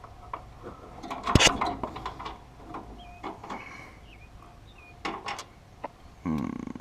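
Scattered metal clinks and knocks of hand tools and mounting bolts while a gas tank is being bolted up under a truck, the loudest a sharp knock about one and a half seconds in, with a few more around five seconds.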